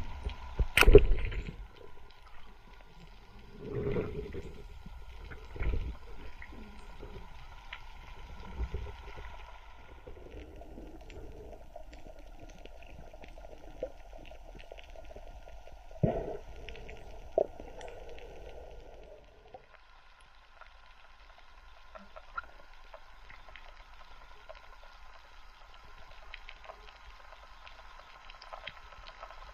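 Muffled underwater noise from a waterproof camera during a night dive, with a sharp knock about a second in and several dull thumps and knocks after it. A faint steady hum runs underneath, and the noise grows quieter about two-thirds of the way through.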